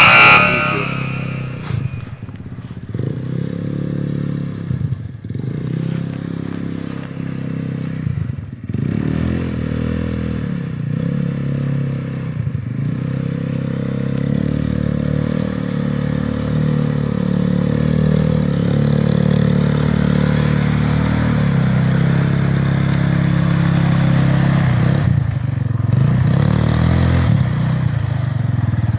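Quad bike (ATV) engine revving hard as it works through deep mud. The revs rise and fall again and again for the first half, then hold higher and steadier. A short loud scrape comes right at the start.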